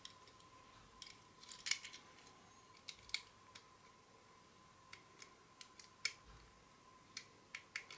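Snap-off utility knife blade shaving excess plastic from a small plastic kit part, heard as a scatter of faint, irregular clicks and scrapes.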